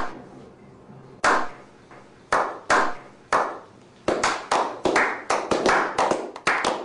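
Slow clap by a small group: single hand claps about a second apart at first, then coming closer and closer together until about four or five a second.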